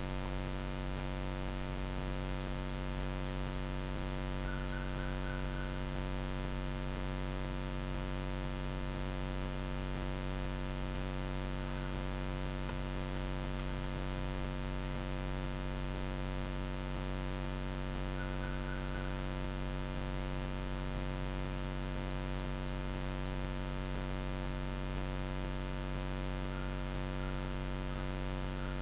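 Steady electrical hum, a stack of even tones that does not change: the self-noise of a Moultrie trail camera's recording electronics. A few faint short chirps come through now and then.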